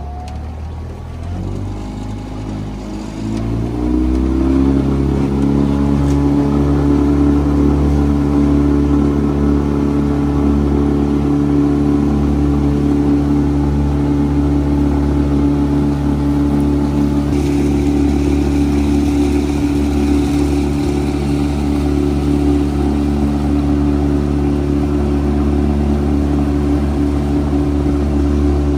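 Boat's outboard motor accelerating over the first few seconds, then running steadily at high speed.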